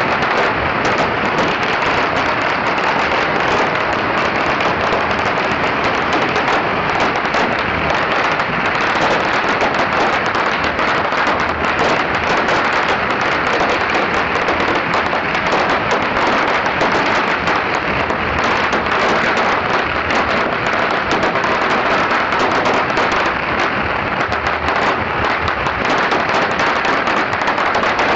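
A very long string of pagara firecrackers going off in a dense, unbroken crackle of rapid bangs.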